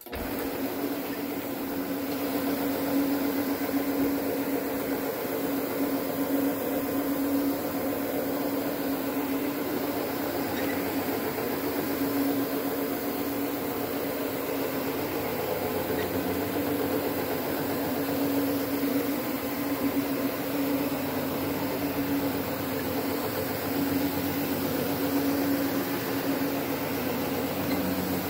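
Electric counter-rotating-brush carpet scrubbing machine running steadily, its twin brushes scrubbing the carpet pile. The motor hum swells and fades every few seconds.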